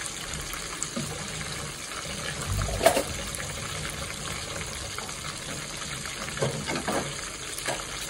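Pieces of dove sizzling steadily as they fry and brown in a pot of oil and broth. There is one short knock about three seconds in.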